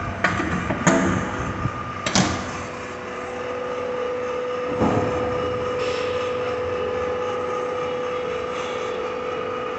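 Plastic injection moulding machine: a few sharp clunks in the first two seconds as its sliding safety gate is shut, then the steady hum and whine of the hydraulic drive as the mould closes and the cycle runs, with another knock about five seconds in.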